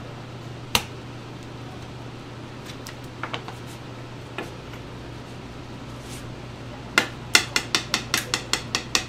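A metal knife blade tapping sharply on a cutting board as fish cake paste is worked: a single tap about a second in, a few light ones in the middle, then a quick run of about ten taps near the end. A steady low hum runs underneath.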